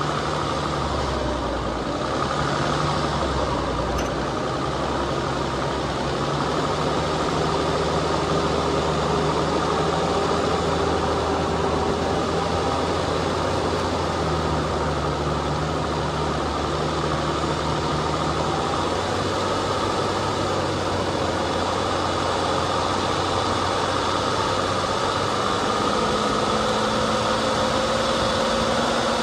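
Off-road vehicle's engine running steadily as it climbs a dirt trail, its pitch drifting slowly and rising a little near the end, over a continuous noisy rumble.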